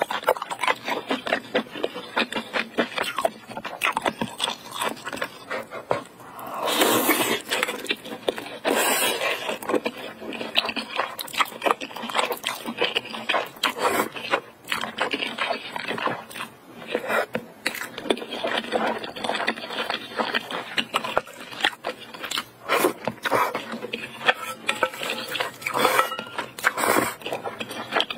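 Close-miked eating sounds of spicy jjamppong ramen noodles: wet chewing and lip smacking, with noodles slurped in noisily, the longest slurp about seven seconds in and a shorter one about nine seconds in.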